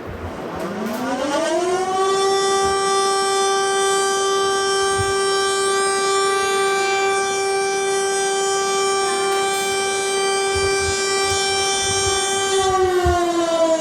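Civil defense siren winding up: a single tone that rises for about two seconds, holds steady, then starts to wind down near the end.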